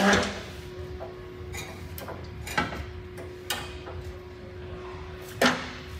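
Several separate knocks and clunks of a steel winch bumper on a wheeled lift cart as it is nudged into place against the truck's front end; the sharpest knock comes near the end. A faint steady hum runs underneath.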